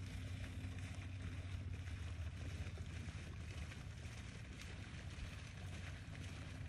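Outdoor ambience: a steady low hum under an even hiss of wind on the microphone.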